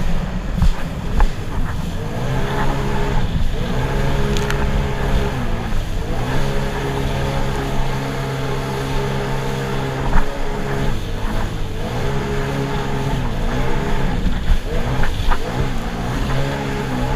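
Sea-Doo personal watercraft engine running at speed, its note dipping and climbing back several times over a constant rush of wind and water.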